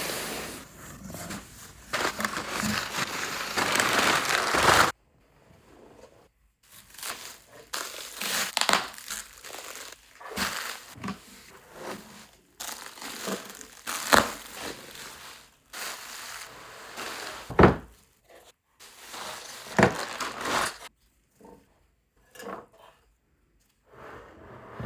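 Packing material crinkling, rustling and tearing as a box is unpacked by hand, in irregular bursts with a few knocks and one heavy thump about two-thirds of the way through.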